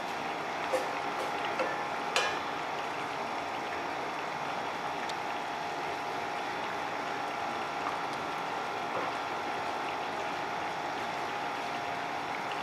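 Squid adobo sauce simmering in a stainless steel pot over a steady hum, with three light knocks of a wooden spatula against the pot in the first couple of seconds.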